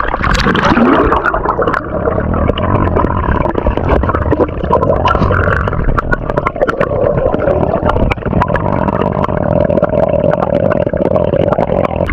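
Muffled underwater sound from a camera held below a river's surface: a steady wash of water noise with bubbling and many small scattered clicks.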